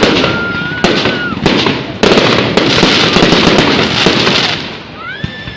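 Fireworks going off: several sharp bangs in quick succession over the first two seconds, then a long dense crackling stretch, with thin whistling tones around the bursts, one of them rising near the end.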